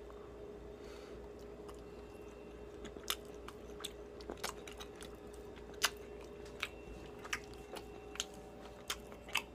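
A person chewing a microwaved plant-based chicken strip (Beyond Chicken grilled strip) close to the microphone: irregular mouth clicks roughly every half second to a second, starting about three seconds in, over a steady hum. The soy-and-pea-protein strip is a little rubbery.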